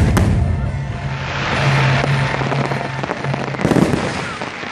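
Fireworks bursting: two sharp bangs right at the start, then crackling, and another burst a little before the end, with music playing underneath.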